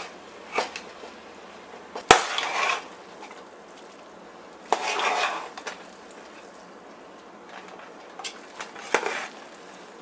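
A metal spoon scrapes and clinks against a metal pot as half-cooked basmati rice is tossed into biryani masala. There are about five separate strokes, and the sharpest clink comes about two seconds in.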